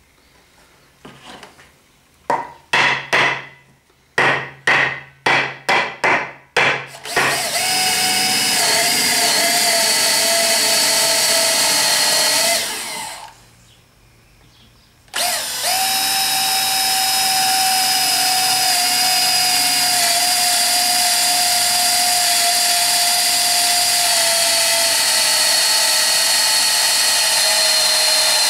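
Cordless drill boring into a chestnut board with a long spiral wood bit, running steadily, stopping for about two seconds near the middle, then running on. Before it starts, about ten short, sharp sounds come in quick succession.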